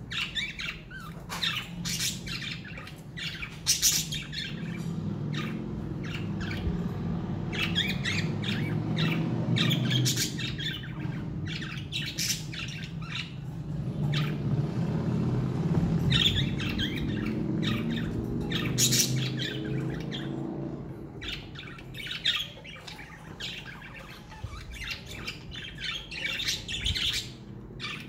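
Pet budgerigars chirping and squawking, a string of short, sharp calls throughout, with a low steady hum underneath through much of the middle that fades about three-quarters of the way in.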